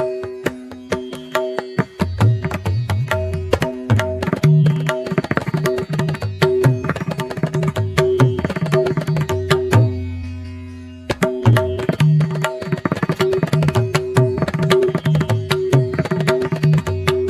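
Background music in an Indian classical style: rhythmic tabla-like hand-drum playing over a steady drone, with a short lull about ten seconds in before the drumming resumes.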